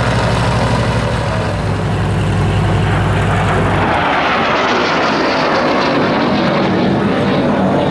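Aircraft engine noise: a steady low engine hum, then about four seconds in a broad rushing sound of an aircraft swells up and stays loud.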